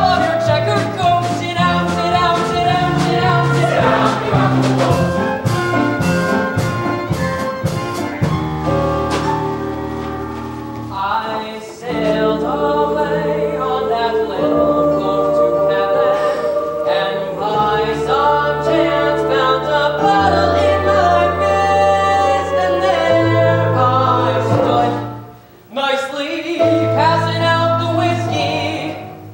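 Chorus singing a gospel-style Broadway show tune with a brassy band accompaniment, sharp percussive hits in the first several seconds. The music drops out briefly near the end, comes back, then stops.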